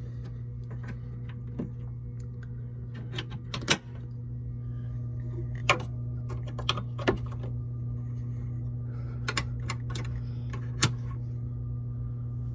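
A hotel room HVAC unit running with a steady low hum, its return-air vent open. About a dozen scattered sharp clicks and taps sound over it.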